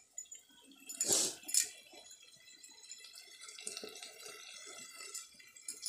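Water splashing and dripping after hand-washing over a steel bowl, with one louder splash about a second in.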